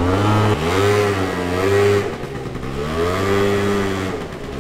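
Yamaha Zuma scooter engine accelerating as it is ridden, its pitch rising and then holding. It eases off about two seconds in, climbs again, and drops back near the end.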